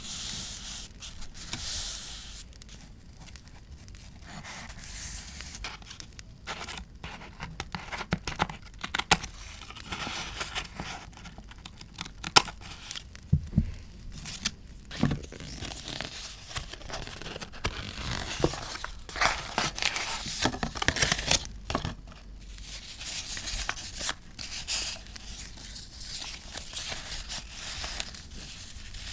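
Paper being torn and crinkled by hand for journaling, in irregular rustling swells with a few sharp clicks.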